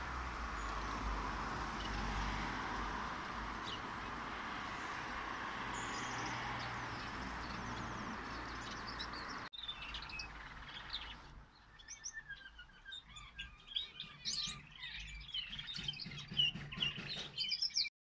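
Small aviary finches chirping and tweeting, many short high calls overlapping. In the first half they sit over a steady rushing noise that cuts off abruptly about halfway through, after which the separate chirps stand out clearly.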